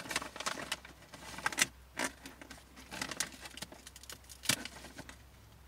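A hand rummaging in a bag of seed crackers, the packaging crinkling and rustling in irregular bursts, with a few louder crackles about a second and a half, two seconds and four and a half seconds in.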